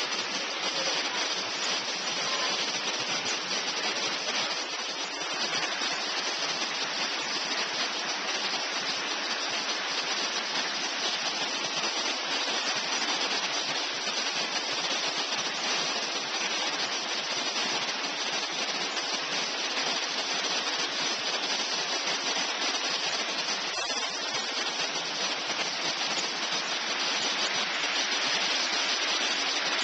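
Steady rushing of a 25 m waterfall's falling water.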